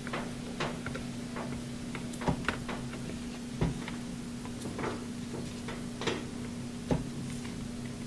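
Scattered light clicks and knocks as a washing machine's power cord and plug are handled behind the cabinet, over a steady low hum.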